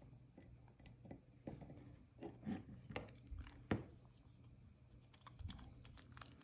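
Faint scattered clicks and taps of a precision screwdriver's T10 bit and metal knife parts being handled while the pivot screw of a Demko AD20 folding knife is started, with a few sharper clicks about three seconds in.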